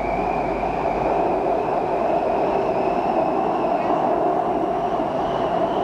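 BTS SkyTrain elevated metro car running between stations, heard from inside the cabin: a steady rumble with a thin high whine that rises slightly.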